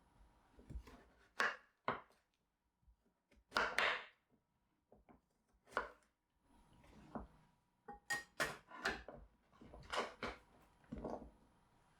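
Knife chopping food on a cutting board: a dozen or so short knocks and scrapes at an uneven pace, with pauses between them.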